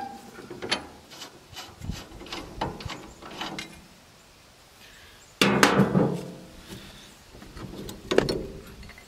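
Hand ratchet wrench clicking in short runs as bolts are worked loose on a finish mower's three-point-hitch bracket. About halfway through comes one loud ringing metallic clank.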